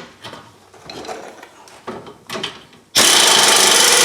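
Light ratcheting clicks of a socket on a bolt. About three seconds in, a power tool runs loudly for about a second, spinning out the bottom bolt of the rear hub.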